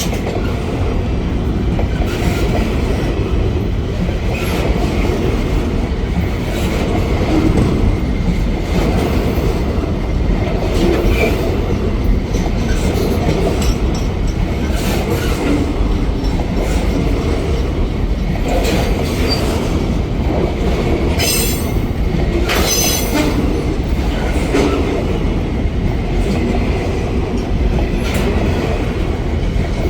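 Freight train wagons rolling past on the rails: a steady rumble of wheels with repeated clicks over the rail joints, and brief high wheel squeals about two-thirds of the way through.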